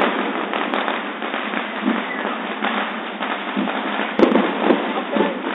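Fireworks and firecrackers going off in a dense, continuous crackle, with three sharper bangs about half a second apart near the end.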